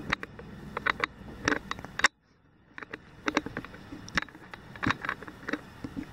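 Kittens' paws and claws scratching and tapping on a woven rug during play: irregular scratchy taps and rustles, with a short gap of near silence about two seconds in.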